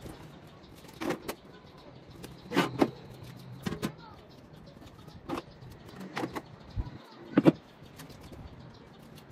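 About ten short knocks and clatters at irregular times, several coming in quick pairs, the loudest pair about seven and a half seconds in.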